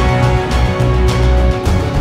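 A news channel's outro theme music: held synth tones over a heavy, pulsing bass beat.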